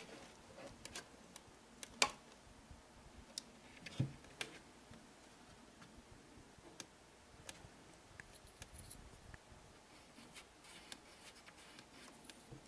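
Faint scratching and small clicks from a thin marking stick and a plastic camera mount on a bicycle helmet's hard shell, as the mount's position is marked, with a sharper knock about 2 s in and another about 4 s in.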